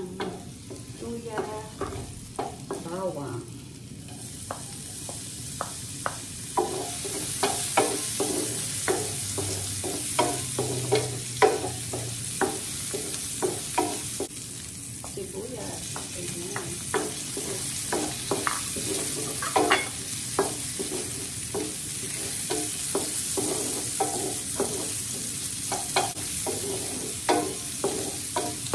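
Sliced ginger, garlic and onion sizzling in butter and oil in a nonstick frying pan, with a wooden spoon scraping and tapping the pan over and over as it stirs. The sizzle grows louder about six seconds in.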